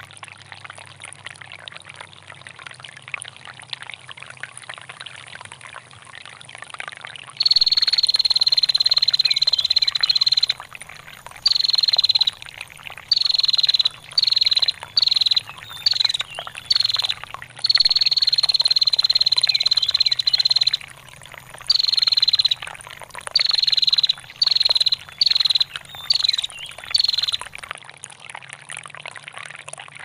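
Female prenjak (prinia) giving long, high-pitched calls held on one pitch. About a quarter of the way in comes a call of several seconds, then a string of short bursts, then another long call past the middle and more short bursts. Steady trickling water runs underneath.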